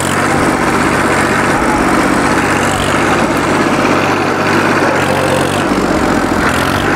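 Farm tractor's diesel engine running steadily while the tractor pulls against a rope held by a team of men.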